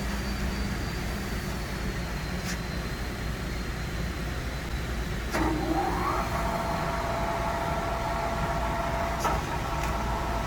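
Kingston HR 2000 heavy-duty engine lathe running with a steady low hum and a few sharp clicks. About five seconds in, a click is followed by a whine that rises in pitch and then levels off into a steady gear whine.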